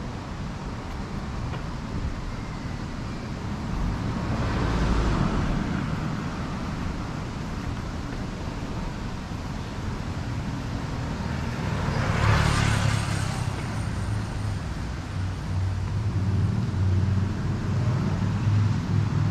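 Street traffic: two cars pass by, one about four seconds in and another about twelve seconds in, each swelling and fading over a low, steady rumble.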